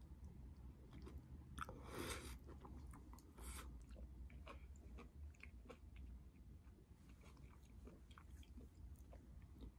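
Faint close-up eating sounds: a person chewing a mouthful of stew, with two short hiss-like bursts, one about two seconds in and a shorter one a second and a half later, and scattered small clicks of a metal spoon.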